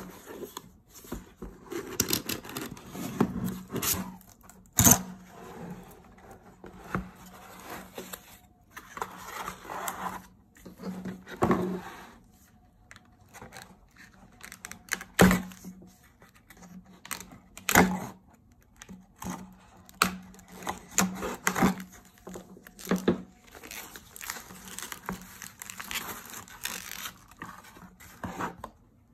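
Cardboard shipping box being opened and unpacked by hand: tearing, flaps scraping and knocking, and plastic wrap crinkling, in irregular bursts with sharp knocks.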